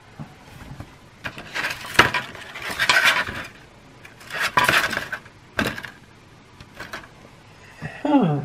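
Clicking and rattling handling noise from USB plugs and cables being pushed into a Raspberry Pi Zero, in several bursts. Near the end a short tone slides down in pitch.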